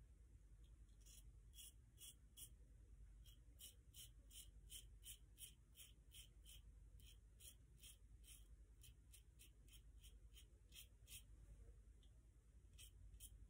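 A 1960 Gillette Flare Tip double-edge safety razor with a Super Iridium blade scraping through lathered stubble on the chin and upper lip: faint, short scratchy strokes, two or three a second, with a brief pause near the end.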